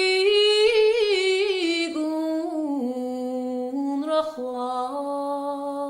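Unaccompanied female voice singing a slow song in Irish, holding long notes with small ornaments and stepping down to a lower held note partway through.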